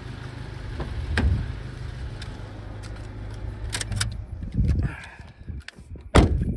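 Car engine idling with a steady low hum, then switched off about four and a half seconds in. Scattered clicks are heard, and a loud thump comes near the end.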